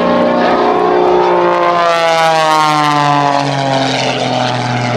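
Oracle Challenger III aerobatic biplane's piston engine and propeller, a steady loud drone whose pitch slides down from about a second in until near the end.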